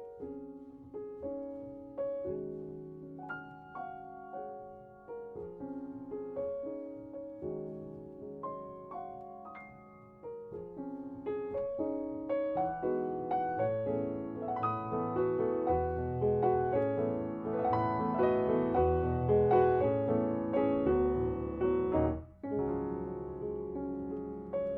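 Background piano music: single notes at first, filling out into fuller, louder chords about halfway through, with a short break a few seconds before the end.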